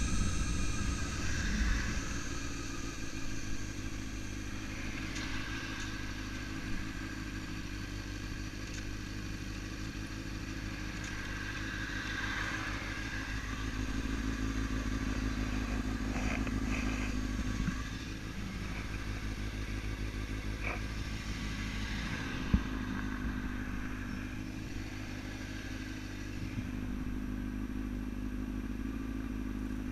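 Motorcycle engine running steadily while riding, with a few short sharp clicks, the loudest about 22 seconds in.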